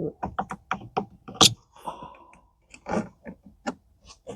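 Irregular run of small clicks and knocks as a brake pedal cover's lip is levered over the edge of the brake pedal with a screwdriver, with a sharper click about a second and a half in and again near the end.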